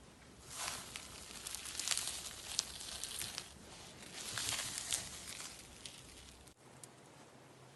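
Slime being squished and pulled by hand, crackling and crinkling with small sharp pops, in two spells a second or so apart.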